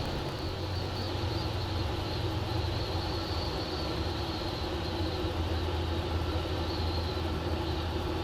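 Steady drone of a light aircraft's engine and propeller, the homebuilt Zenith CH-650 on final approach to land.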